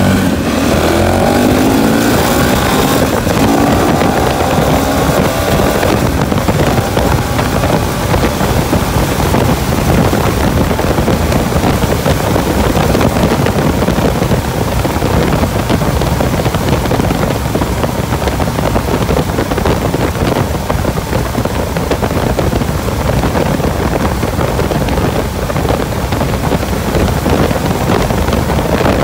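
KTM motorcycle engine pulling hard, its pitch rising through the first few seconds, then heavy wind buffeting on the handlebar microphone at speed that drowns out most of the engine.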